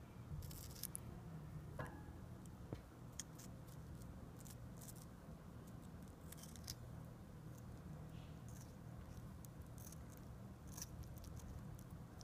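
African grey parrot biting and chewing a strawberry held in its foot: faint, irregular clicks and wet snips of its beak working the fruit.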